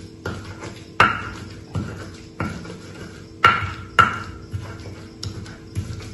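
Stone pestle knocking and grinding chilli paste in a stone mortar (Indonesian cobek and ulekan), stone on stone about every two-thirds of a second. A few strikes are much sharper, with a brief ring.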